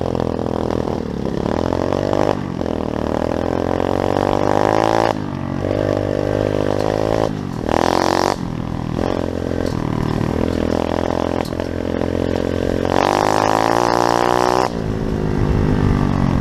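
Pit bike's small single-cylinder engine running and being revved repeatedly, its pitch climbing and dropping with each blip of the throttle, with a sharp high rev about halfway through and a longer high rev near the end.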